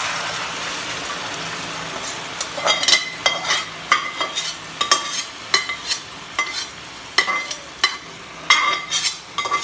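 Mutton head curry poured from a pressure cooker into a hot frying pan, sizzling loudly at first and dying away over the first couple of seconds. Then irregular metal clinks and scrapes of the cooker pot against the pan, about one or two a second.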